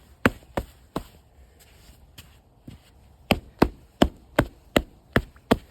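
Quicksand making sharp popping clicks, the weird sounds it gives as air or water bubbles break in it: a few pops, a lull of about two seconds, then an even run of about three pops a second.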